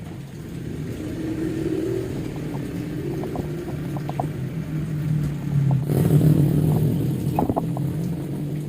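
Honda Scoopy 2017 scooter's single-cylinder engine running, growing louder about six seconds in as it is revved, with a few light clicks along the way.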